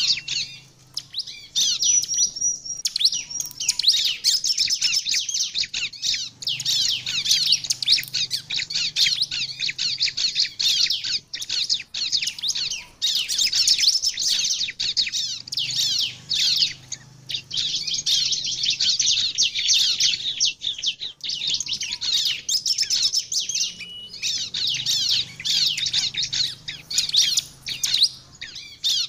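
Bar-winged prinia (ciblek) singing in full, vigorous song: long runs of rapid, high chirps and trills, broken by brief pauses.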